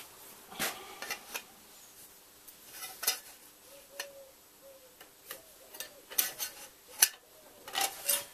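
Light metallic clicks and taps as a thin-wall stainless steel tube and a steel square are handled and set against each other, checking that the tube's cut end is square. The knocks come irregularly, a dozen or so, the sharpest about seven seconds in.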